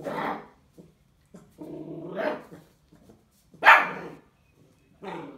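Bull terrier puppy barking in play at a plastic water bottle, about four sharp barks with quiet gaps between, one of them drawn out longer, the loudest near the end.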